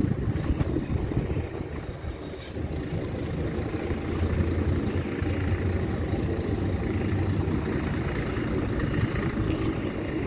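Mercedes-Benz Citaro O530 city bus's diesel engine idling steadily.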